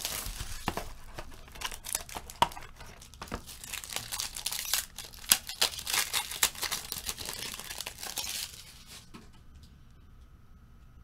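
Packaging of a box of football trading cards being torn open and crumpled, a busy crinkling with many sharp snaps and crackles. It stops about eight and a half seconds in.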